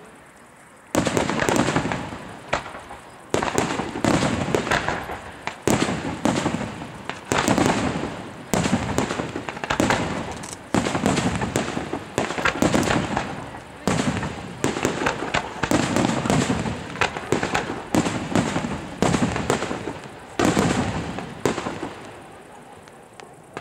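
Aerial firework shells bursting in quick succession, a sharp bang about every second or so, each trailing off, with crackling in between. The first bang comes about a second in, and the bursts thin out near the end.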